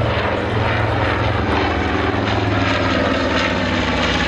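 A North American B-25 Mitchell bomber flying overhead, its two Wright R-2600 14-cylinder radial engines running in a loud, steady propeller drone.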